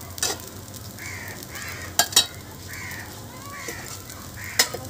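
Crows cawing over and over, above the faint sizzle of an egg dosa cooking on a hot iron tawa. Four sharp clicks stand out as the loudest sounds: one near the start, two close together about two seconds in, and one near the end.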